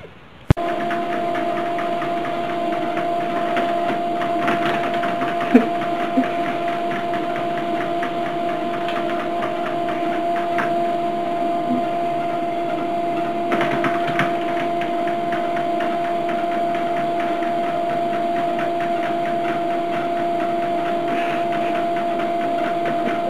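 Treadmill motor and belt running with a steady hum, starting suddenly about half a second in. A couple of sharp knocks sound over it around five and six seconds in.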